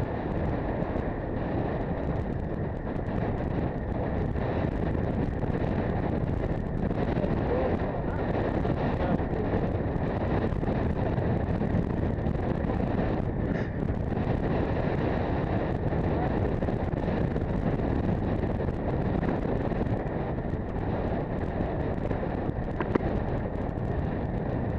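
Steady wind rush on the microphone of a camera riding along on a road bike, with the rolling noise of the bike underneath. A single sharp click near the end.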